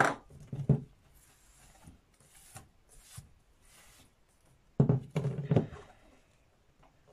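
Cured epoxy resin disc knocked and set down on a tabletop: a few knocks at the start and a louder cluster about five seconds in, with a paper towel brushed over the table in between.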